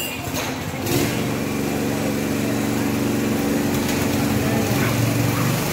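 Small petrol go-kart engine starting up about a second in, then running steadily.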